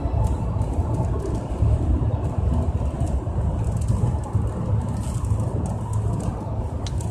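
Road and engine noise inside a moving car's cabin at highway speed: a steady low rumble, with a few faint clicks and rustles on top.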